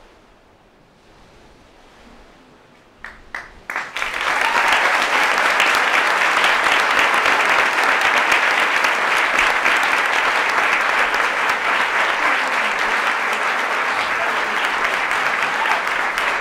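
Audience applauding: after a short hush, a few separate claps about three seconds in, then steady clapping from about four seconds on.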